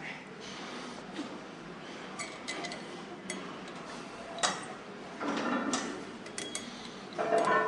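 Scattered sharp metallic clicks and clinks of gym equipment, with a few louder, noisier knocks after about five seconds.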